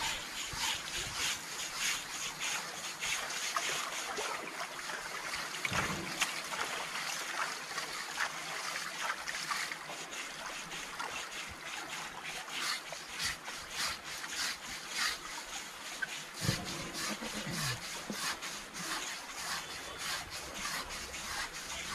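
Scrubbing of a bathing Asian elephant's hide in shallow water: many rough rubbing strokes, with water splashing and trickling around it.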